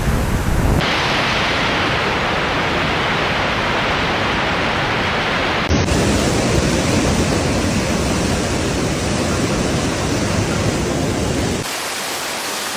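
Steady rushing noise of floodwater and heavy rain, across several clips that change abruptly about a second in, about six seconds in, and near the end, where it turns thinner and quieter.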